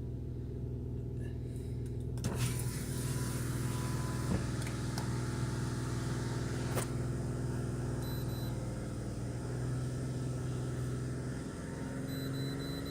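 Ford Escape's 3.0-litre V6 engine running steadily, its sound growing fuller about two seconds in as it is brought up a little. The engine has a cylinder 6 misfire (code P0306) that did not move when the coil packs were swapped.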